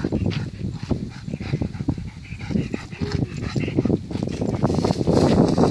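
A yellow Labrador retriever making excited dog noises while it tugs at and chases a thrown stick, with a short whine-like tone about three seconds in. A louder rush of noise comes in near the end.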